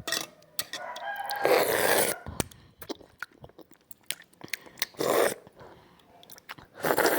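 Close-miked eating of instant soup noodles: slurping and chewing with wet mouth clicks. There are three longer slurps, about a second and a half in, around five seconds and near the end, one with a brief squeaky whistle just before it.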